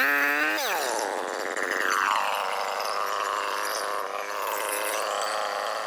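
Chainsaw cutting through the thick woody main trunk of a vine, its motor pitch rising and falling in quick swells in the first second, then running at a fairly steady pitch.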